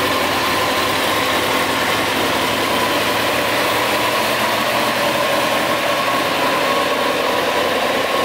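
Kawasaki ZX-6R's inline-four engine idling steadily.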